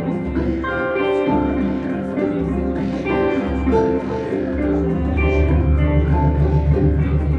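Live ambient jam music: pitched notes ring out and fade over a low sustained bass, which swells about five seconds in.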